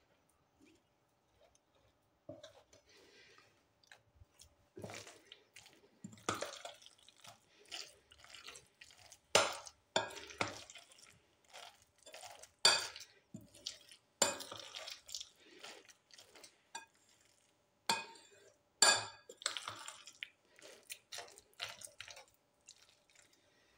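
Metal spoon stirring and scraping through sliced onions and a thick batter in a ceramic bowl, with irregular sharp clinks of the spoon against the bowl's side.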